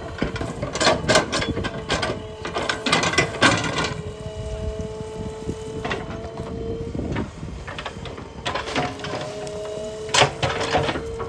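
Excavator working: a steady hydraulic whine that shifts slightly in pitch, with repeated metallic clanks and knocks, most in the first few seconds and again near the end.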